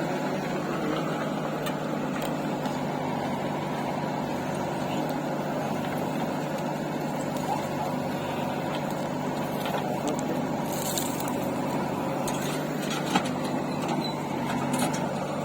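Diesel engine running steadily at a constant speed, with a single sharp knock about thirteen seconds in.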